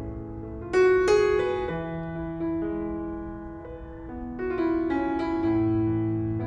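Slow, gentle piano music: sustained chords with new notes struck about a second in and again in the second half.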